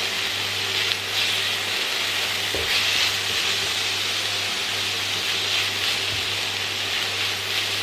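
Sliced onion and green chilies sizzling steadily in a tablespoon of olive oil in a nonstick frying pan, stirred and pushed around with a silicone spatula as they sauté.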